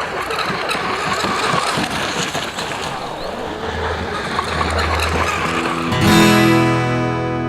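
Joysway US 1 v3 brushless RC catamaran boat running fast on the water. About six seconds in, a loud guitar chord starts and rings on.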